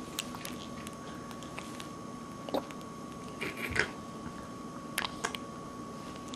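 Newborn baby's small wet mouth sounds: a few soft, short clicks and smacks, over a faint steady whine.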